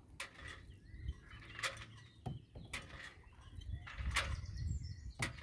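Small water slaps, drips and knocks around a kayak on the move, with a low rumble swelling about four seconds in.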